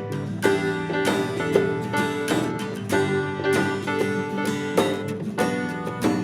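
Live band playing an instrumental passage of a rock song: guitars over a steady drum beat, with no singing.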